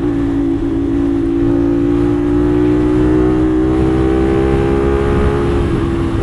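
CFMoto 450SR's parallel-twin engine running at highway speed, its pitch rising slowly as the bike gains speed, over a heavy rumble of wind noise on the microphone.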